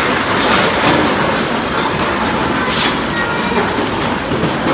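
Steady loud din of recycling-depot machinery, with a few sharp clacks, the loudest about two and three-quarter seconds in.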